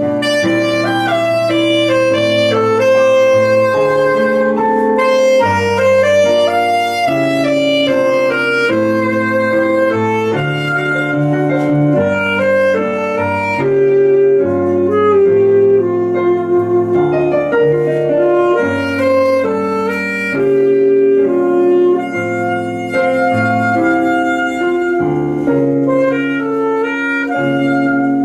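Saxophone playing a melody in held notes over electric piano chords and bass notes, performed live.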